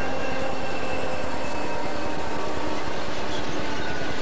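Southern Pacific diesel locomotives passing close by, engines and wheels making a loud, steady noise with several thin whining tones held above it.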